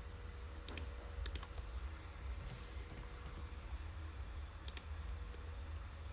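Scattered clicks of a computer mouse and keyboard, a few single clicks and quick pairs, over a steady low hum.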